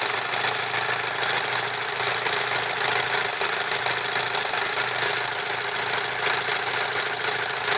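MORSE Model 5401 stretch-stitch sewing machine running steadily at speed, its motor humming and needle mechanism rapidly clattering as it stitches.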